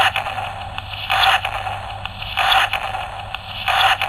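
DX Kamen Rider Fourze Driver toy belt playing the Beat Switch sound effect through its small built-in speaker. It is a rhythmic electronic pulse that repeats about every 1.3 seconds over a steady hiss, like a heartbeat.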